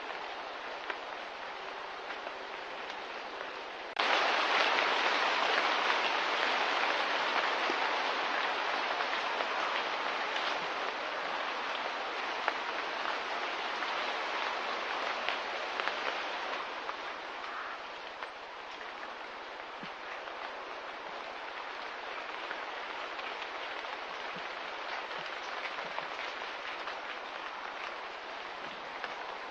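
Steady patter of rain, which grows suddenly louder about four seconds in and then gradually eases back over the next dozen seconds.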